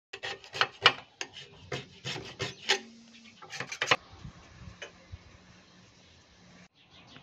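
Quick, irregular run of scrapes and knocks from a metal pocket-bike frame and tools being handled on a wooden table, then a faint low hum that stops shortly before the end.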